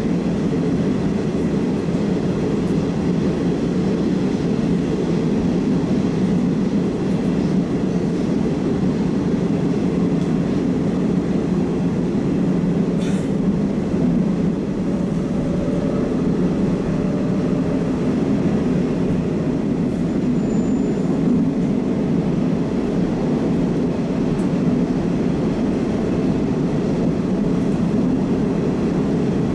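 Moscow metro 81-760/761 "Oka" train running at speed between stations, heard inside the car: a steady rumble of wheels on rail and running gear, with a single short click about halfway through.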